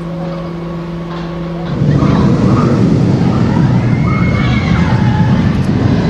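A steady hum cuts off a little under two seconds in. A loud, rushing rumble takes over, fitting a suspended looping roller coaster train going by on its track.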